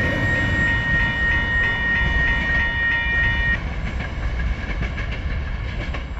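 Level-crossing warning bell ringing in quick strikes, about three a second, then stopping abruptly about three and a half seconds in as the last wagons clear the crossing. Under it, the low rumble of the container freight train's wagons on the rails, fading as the train moves away.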